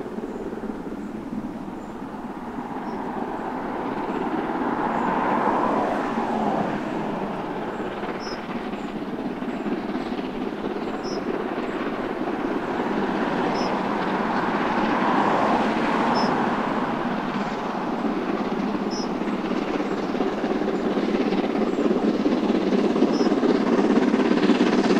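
Steam locomotive hauling a train, heard approaching from a distance: a steady rush of exhaust and train noise that grows louder as it nears.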